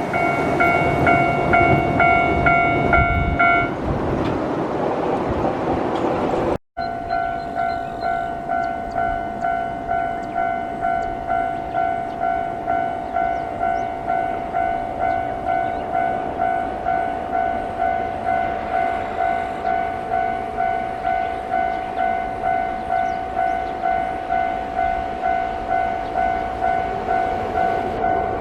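Electric train running over a steel railway bridge while a level-crossing warning bell rings in a steady pulse, about twice a second. After a brief break about seven seconds in, a crossing bell goes on ringing at the same pace over quieter train noise.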